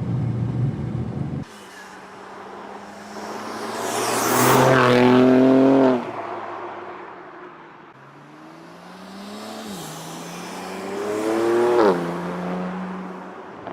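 BMW G80 M3's twin-turbo inline-six through a Fi EXHAUST valved performance catback, accelerating in two pulls: the exhaust note climbs to a loud peak and cuts off abruptly about six seconds in, then climbs again and drops sharply near the end.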